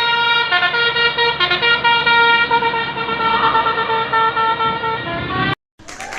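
Basuri telolet bus horn playing a melody of held, stepped notes, cutting off abruptly about five and a half seconds in.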